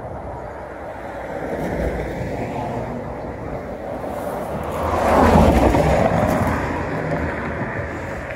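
A motor vehicle passing by on the street: a steady rushing sound that builds, is loudest about five seconds in, then fades away.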